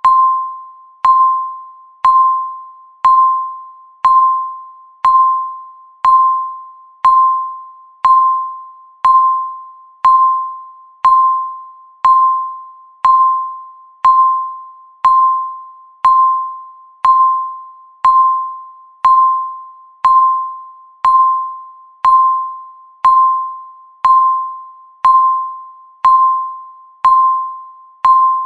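Countdown timer beep: one short, high bell-like tone struck once every second, each dying away quickly, ticking off the seconds.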